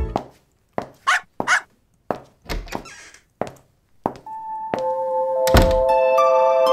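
Sound effects for an animated door-opening scene: a string of short knocks and clicks. About four seconds in, bell-like tones ring out and build into a held chord, with a heavy thunk just after five seconds.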